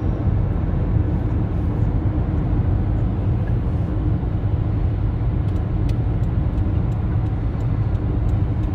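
Steady road and engine rumble of a moving car heard from inside the cabin, even in level throughout, with faint regular ticks in the second half.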